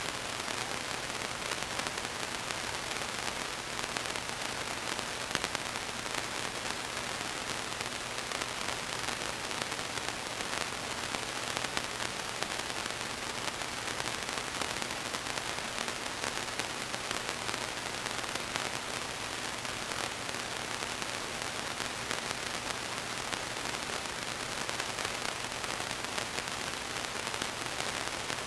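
Steady electronic hiss of the recording's microphone line, with a faint low hum underneath and nothing else.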